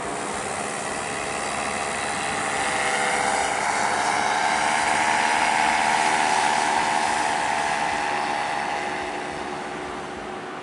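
Paramotor's engine and propeller droning steadily in flight, growing louder toward the middle as it comes closer, then fading.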